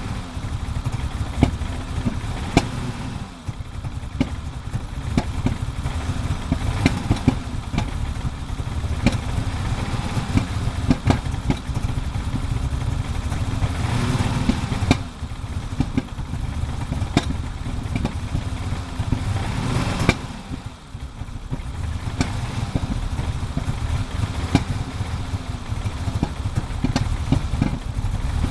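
BMW E30 325is 2.5-litre straight-six idling unevenly after a cold start. It misfires, with frequent irregular sharp pops over the rumble, and its sound dips briefly three times: about three seconds in, near the middle, and about two-thirds of the way through.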